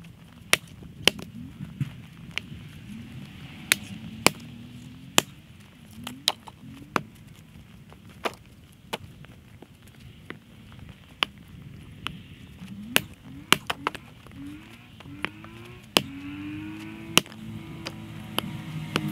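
Axe splitting firewood rounds on a chopping block: a series of sharp cracks, roughly one every second or two.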